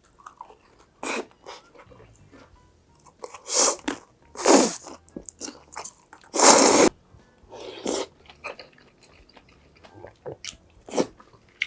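Close-miked crunchy bites and chewing of crisp food, in separate bursts with the loudest about two-thirds of the way through.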